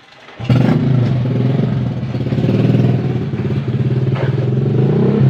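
Motorcycle engine starting close by: it catches abruptly about half a second in, then keeps running steadily.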